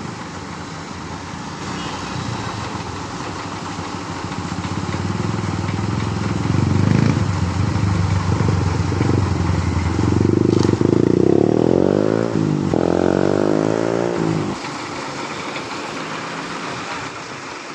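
A motor vehicle engine running and accelerating, louder in the middle, its pitch rising twice in quick succession as if through gear changes, then dropping away.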